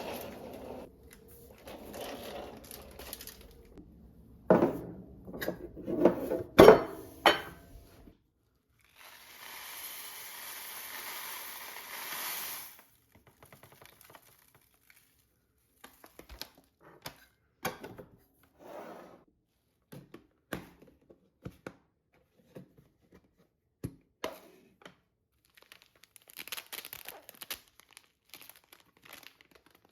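Kitchen handling sounds: dishes and containers clinking and knocking, with the loudest knocks a few seconds in. A steady hiss follows for about three seconds, then scattered light taps and packaging crinkling.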